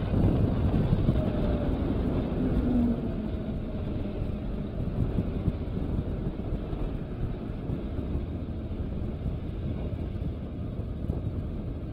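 Motorcycle riding noise from a Honda NC750X's parallel-twin engine at low speed, blended with steady wind and road rush. A faint rise in pitch comes in the first couple of seconds, and the noise eases slightly after that.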